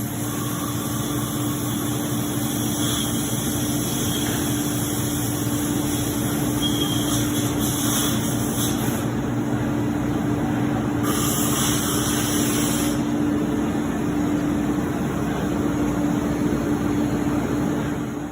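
Ooya REM 5M bridge-type CNC vertical machining center running under power: a steady mechanical hum carrying one held tone. Loud hissing comes in twice, at about eight seconds and again at about eleven seconds, each lasting a second or two.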